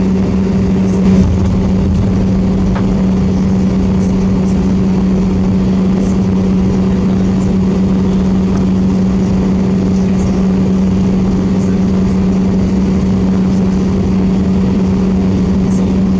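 Airbus A320 cabin noise while taxiing: a steady low-pitched engine drone with a fainter, higher tone above it, over a rushing hiss, and a short bump about a second in.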